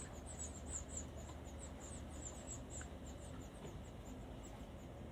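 Nestling birds giving a rapid series of very high, thin begging cheeps, several a second, that thin out and fade about three seconds in: the young calling for food as the parent feeds them.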